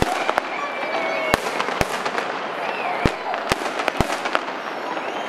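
Aerial fireworks going off: a run of about seven sharp bangs, irregularly spaced less than a second to a second and a half apart, over a steady hiss.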